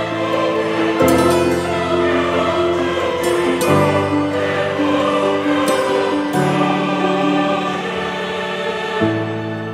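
Background music: slow, sustained choir-like chords that change about every two to three seconds.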